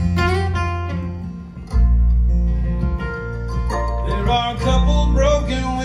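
Acoustic string band playing an instrumental passage: strummed acoustic guitar over deep upright bass notes, with mandolin. The bass note changes about two seconds in and again near the five-second mark.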